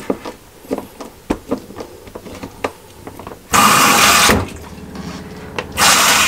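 Small irregular clicks and scrapes of a screwdriver tightening a hose pipe clamp on a Dometic 310 RV toilet's water valve. Then come two loud rushing bursts of about a second each, the first about three and a half seconds in and the second near the end.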